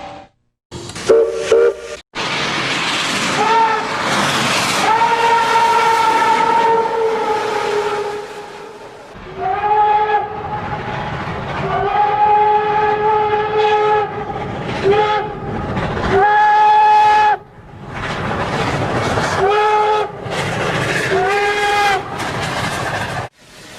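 A train whistle sounds a series of long and short blasts over the noisy running of a moving train. The longest blast comes about five seconds in, and the shortest toots come near the end. The recording is made of several clips spliced together, with brief cuts to silence.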